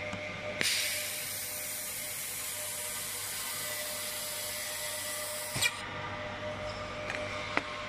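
Handheld fiber laser welder welding aluminum sheet: a steady hiss that starts suddenly about half a second in and cuts off with a click a little before six seconds in. A second sharp click comes near the end, over a faint steady machine hum.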